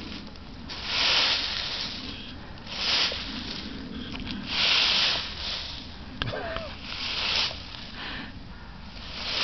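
Broom sweeping leaves in repeated strokes, a swish about every two seconds, five in all.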